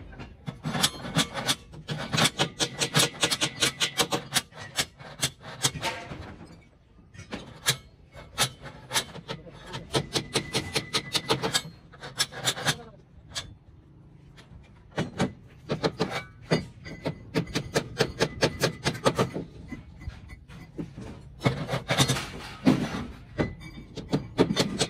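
Claw hammer driving nails into timber beam formwork, in runs of rapid blows with short pauses between.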